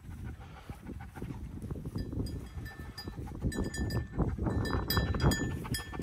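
Small metallic jingling and clinking over rustling handling noise, becoming busier about halfway in.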